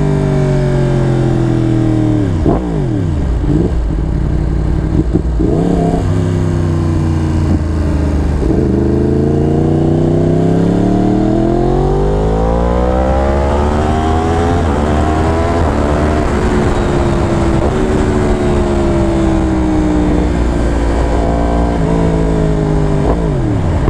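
2015 Yamaha R1's crossplane inline-four engine under way, its pitch rising and falling as the rider accelerates and eases off. There are several sharp dips in pitch a few seconds in, then a long climb and fall in the middle, and a fairly steady note later before it drops near the end.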